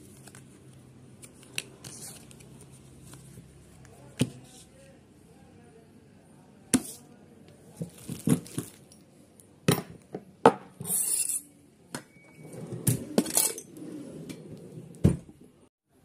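Handling noise from unpacking a chrome sink mixer: a plastic bag and a paper card rustling and crinkling, with scattered sharp knocks and metallic clinks as the fitting is handled and set down on the counter.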